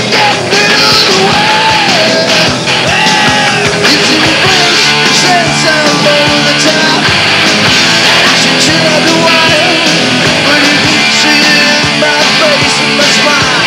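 Hard rock band playing live at full volume, with a male lead singer's sung melody over guitar and drums.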